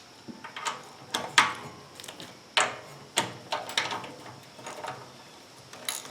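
Irregular sharp metal clicks and clinks of hand tools and small engine parts being handled while unbolting a fuel pump bracket, with a few louder knocks spread through.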